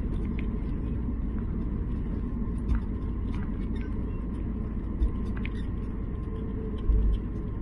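Jet airliner cabin noise: a steady low rumble with a faint steady whine, broken by a few short low thumps about three, five and seven seconds in.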